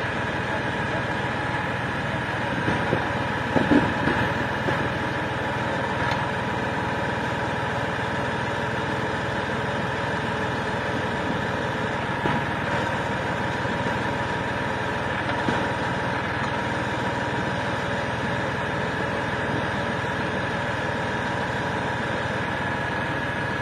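Tractor engine running steadily while driving a rear-mounted hydraulic vine desuckering machine, its spinning rollers brushing along the vine trunks. A few short louder knocks come about three to four seconds in.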